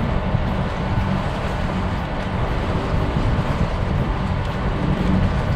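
Boat engine running steadily as the catamaran motors out of its berth, under a low, uneven rumble of wind on the microphone.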